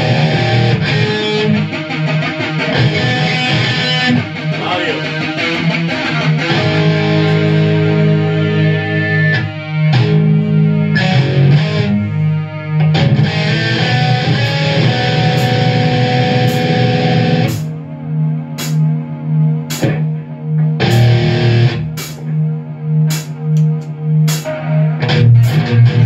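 Live rock jam: heavily distorted electric guitar played loud through Marshall amp stacks, with a drum kit. About two-thirds of the way in, the sustained wall of guitar gives way to a chugging riff that pulses about twice a second, punctuated by sharp drum and cymbal hits.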